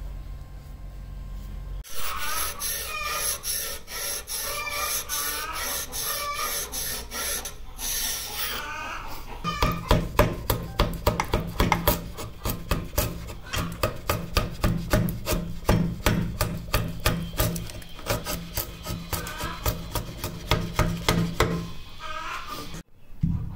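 A freshly sharpened steel wood chisel paring curled shavings off the edge of a softwood board in quick repeated hand-pushed strokes, each a short scrape of steel through wood, testing its newly sharpened edge. The strokes become heavier about ten seconds in and stop shortly before the end.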